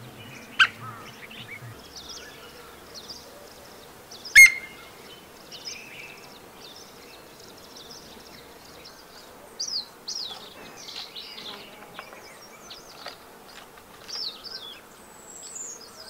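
Small birds chirping and trilling in the forest, with two sharp, clipped sounds about half a second and about four and a half seconds in, the second the loudest.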